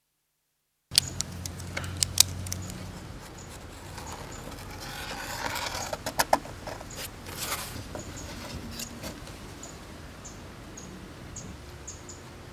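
Wooden boards being handled and marked up: sharp clicks and knocks starting about a second in, a scratchy scrape around the middle, then short high squeaks repeating about twice a second.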